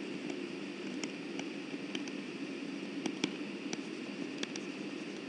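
Steady microphone hiss with faint, scattered light ticks of a stylus tapping on a pen tablet during handwriting.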